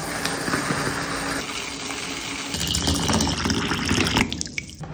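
Dry rice grains pouring from a bag into a glass bowl, then a stream of water pouring into the bowl over the rice and filling it.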